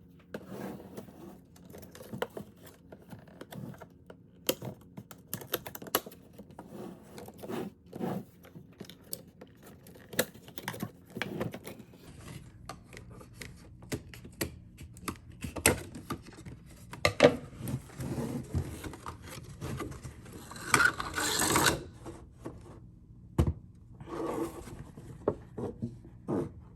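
Doll box packaging being handled and opened: rubbing and scraping with many scattered clicks and taps. A longer rasping rustle comes about 21 seconds in.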